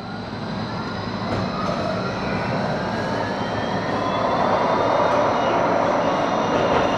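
Light rail tram heard from inside the passenger cabin as it picks up speed: a rising electric whine from the traction drive over a rumble of wheels on rail, growing louder as it goes.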